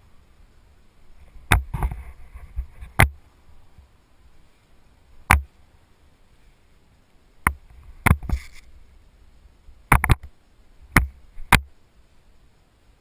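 Handling noise while a landed parachute canopy is gathered up: about ten sharp knocks and clicks at irregular intervals, some in quick pairs, with brief rustling of the nylon between them.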